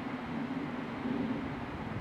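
Diesel train engine running at idle, a steady low drone with a light hiss over it.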